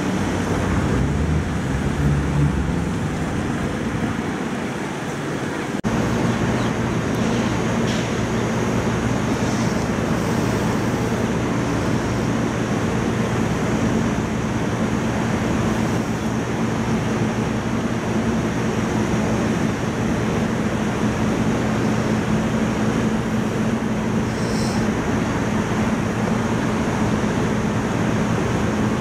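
Road traffic for the first few seconds; then, after a sudden cut about six seconds in, a steady low mechanical hum of trains standing at a railway station platform, with a constant background rush.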